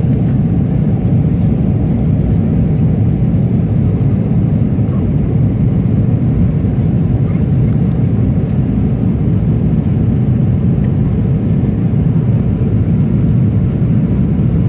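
Steady low cabin noise of a Boeing 777-300ER, the jet's engine and airflow noise heard from inside the passenger cabin.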